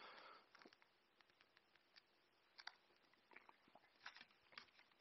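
Near silence broken by faint, scattered clicks and taps of a smartphone being handled in the hands.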